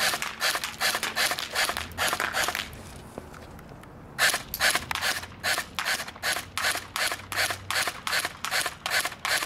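Echo 1 Socom 16 (M14-style) airsoft electric rifle firing single shots on semi-auto, about three a second. It fires in two strings, with a pause of about a second and a half between them.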